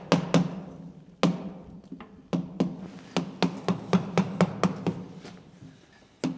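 Farrier's hammer striking in quick runs of sharp blows, about four a second, with short gaps and a pause near the end.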